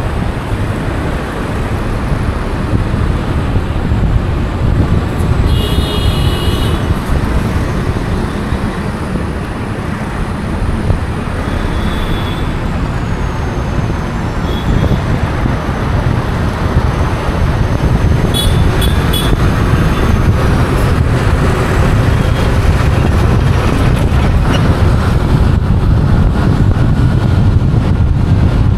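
Road and engine noise of a car driving through city traffic, a steady low rumble that grows louder in the last third. Short horn toots from other vehicles cut in about six seconds in and a few more times, including a cluster near nineteen seconds.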